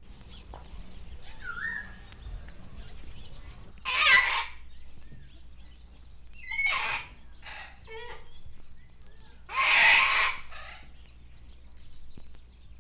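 Animal calls: three loud, harsh calls about 4, 7 and 10 seconds in, with fainter short calls and chirps in between.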